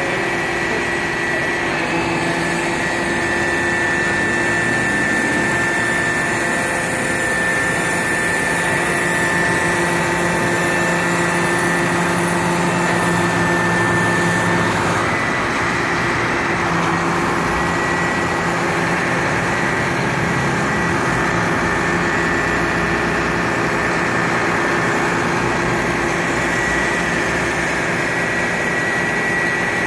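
Diesel engine of a Mack boom truck running steadily while its crane holds a suspended sign, with a thin steady whine above the engine hum. The pitch of the hum shifts slightly about halfway through.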